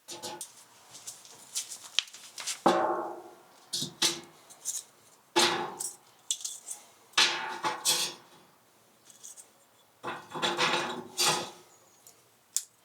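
Dishes, pots and cutlery clattering and clinking in a string of irregular bursts, several of them leaving a short metallic ring.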